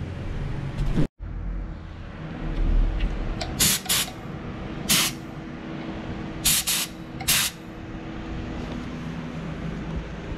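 Gravity-feed paint spray gun triggered in six short hissing blasts of air and paint, mostly in quick pairs, from about three and a half seconds in, shooting test patterns to set the fan shape. A steady low hum runs underneath.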